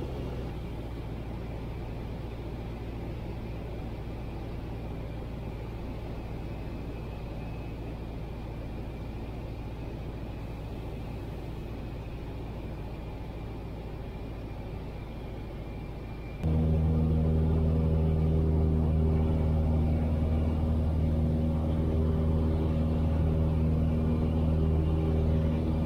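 Piper PA-22 Tri-Pacer's piston engine and propeller droning steadily in flight. The drone is muffled at first, then jumps abruptly louder and fuller about sixteen seconds in, with a strong low steady hum.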